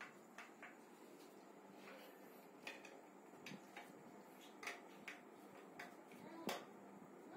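Faint, scattered clicks and light taps at uneven intervals, like small objects being handled, over a quiet steady hiss. The sharpest knock comes near the end.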